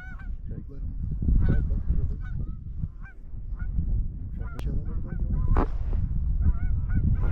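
Canada geese honking and clucking: many short, repeated calls from an incoming flock, over a steady low rumble.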